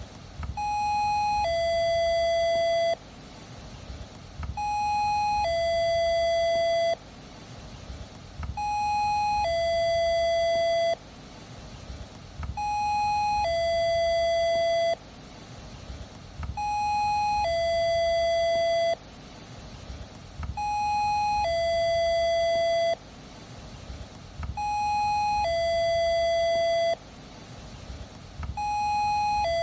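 Electronic two-tone doorbell ringing 'ding-dong' over and over: a short higher note, then a longer lower note that cuts off sharply. The chime repeats about every four seconds, eight times in all.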